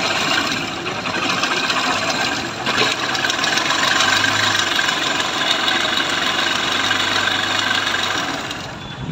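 Honda CB Trigger's 150 cc single-cylinder engine running with a rapid mechanical ticking: an ugly valve-train noise caused by a badly worn camshaft and rocker arms.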